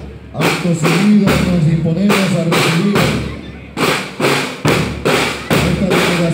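Marching-band drum line of snare drums and bass drums beating a steady march rhythm, a little over two beats a second.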